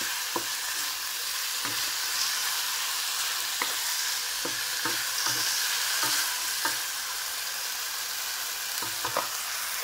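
Sliced bamboo shoots sizzling in hot oil in a non-stick wok, turned with a wooden spatula that knocks and scrapes against the pan at irregular moments.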